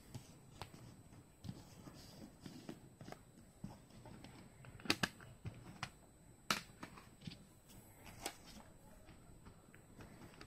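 Plastic CD jewel cases being handled: scattered clicks and light knocks. The sharpest are a quick double click about five seconds in and single clicks about six and a half and eight seconds in.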